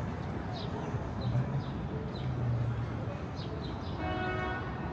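Outdoor waterfront ambience: small birds chirping repeatedly over a steady low rumble that swells for a couple of seconds, with a brief steady pitched tone near the end.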